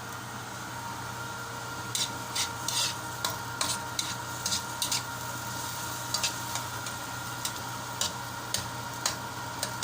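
Utensil stirring and scraping in a cooking pan: an irregular string of sharp clicks and short scrapes starting about two seconds in, over a steady hum.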